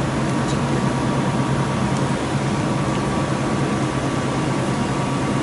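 A steady low mechanical drone with a faint constant tone above it, unchanging throughout.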